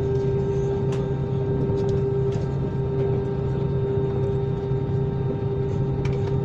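Jet airliner engines running steadily, heard inside the cabin: an even hum with a low drone and a higher steady tone under it, as the plane rolls along the runway. A couple of faint clicks about a second in and near the end.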